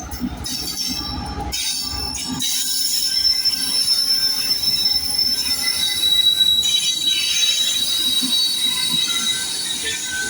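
Train moving along the track with loud metallic wheel squeal: a low rumble for the first couple of seconds, then high, steady squealing tones that hold for the rest of the time.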